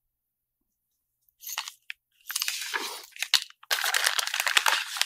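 Plastic zip-lock bags crinkling as they are handled, in several irregular crackly bursts that start about a second and a half in.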